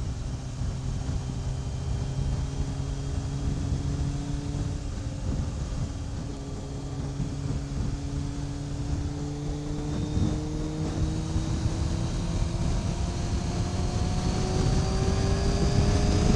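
Yamaha YZF600R's inline-four engine running under way, its tone rising slowly and steadily, over a low rumble of wind and road noise.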